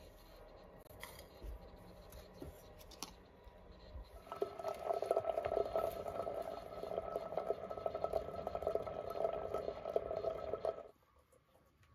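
Hot water running from a samovar tap into a glass teapot of dried rose petals, a steady filling sound that starts about four seconds in and stops sharply near the end. A few faint clicks come before it.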